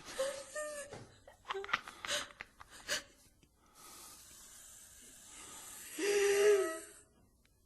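A person's voice making short gasps and breathy whimpers over the first three seconds, then one held moan about six seconds in.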